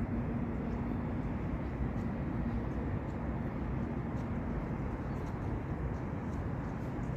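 Steady low outdoor background rumble, with a faint hum that fades out about halfway through.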